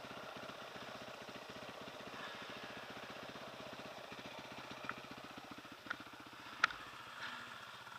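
Small motorcycle engine idling steadily with an even, rapid low pulse, with a few sharp clicks in the second half.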